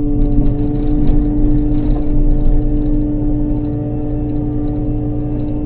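Kubota KX080 excavator's diesel engine and hydraulics running steadily under digging load with a steady whine, while the bucket scrapes and knocks against rocky soil in a string of short clicks and clatters.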